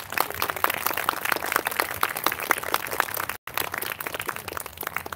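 Audience applauding, many hands clapping at once at the close of a talk, with a brief dropout in the sound a little past the middle.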